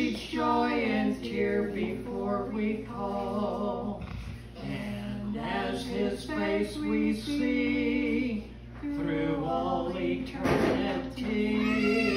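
An older man and woman singing a slow duet together from a songbook, holding long notes in short phrases with brief pauses for breath.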